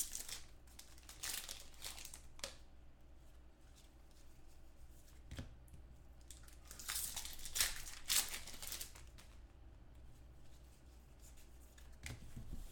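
Foil trading-card pack wrappers being torn open and crinkled by hand, in short, scattered bursts of tearing and crinkling.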